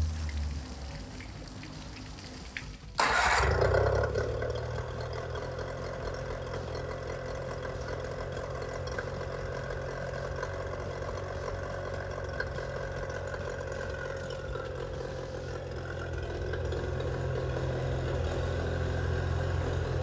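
25 hp Mercury outboard starting abruptly about three seconds in and then running at a steady idle. It keeps running on its own after a carburetor rebuild and new fuel pump parts, the cure for an engine that only ran while its primer bulb was pumped.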